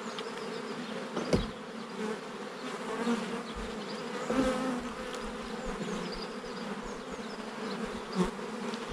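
Honeybees buzzing steadily around an open hive during a frame inspection, with a single sharp knock about a second and a half in.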